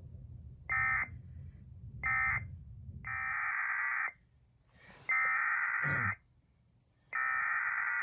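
Emergency Alert System SAME data bursts, the screechy digital tones that frame a weather alert. First come two short end-of-message bursts closing the previous warning, then three longer header bursts of about a second each, spaced about a second apart, announcing the next warning. A brief low warbling sound runs under the second header burst.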